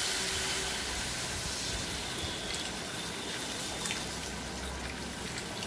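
Water poured in a steady stream from an electric kettle into a hot pan of fried masala and potatoes: a continuous splashing rush that slowly grows quieter.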